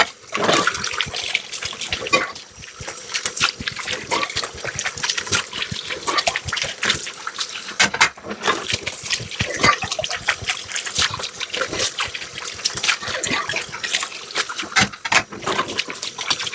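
Dishes being washed by hand at a sink: running water, with frequent short clinks and knocks of dishes and utensils against each other and the sink.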